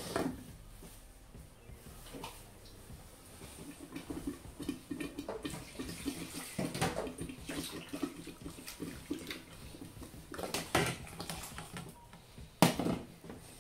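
A pot of sauce bubbling at a boil under a glass lid, with a few clinks of the lid on the stainless steel pot, the loudest near the end as the lid is lifted.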